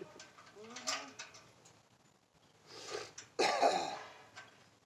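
A person coughing: two rough coughs close together about three seconds in, after a short vocal sound about a second in.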